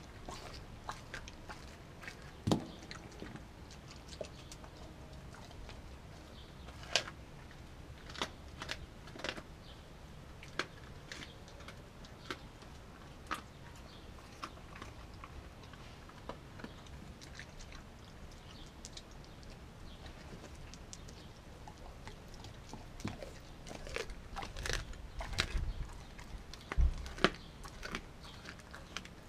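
A Kelpie–German Shepherd–wolf mix dog chewing raw meat on concrete: irregular wet crunches and sharp snaps of teeth through flesh and bone. There is a quieter lull in the middle and a busier run of crunching near the end.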